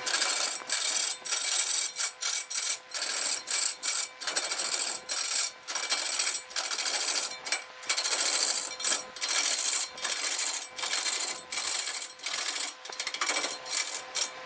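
Turning tool cutting into wood spinning on a lathe: a hissing scrape that breaks off and starts again two or three times a second, over a faint steady whine.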